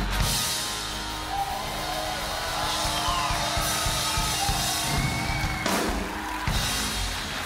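Live band with acoustic guitar, bass and drum kit ending a song: a sustained chord ringing with drum hits and cymbal crashes, and a few whoops from the audience.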